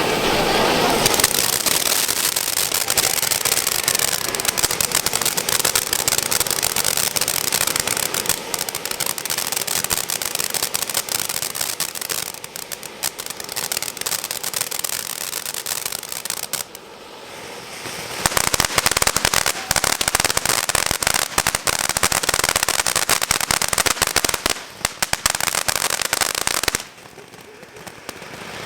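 Fireworks going off in dense, rapid crackling pops: one long run, a short lull about two-thirds of the way in, then a second long run that stops shortly before the end.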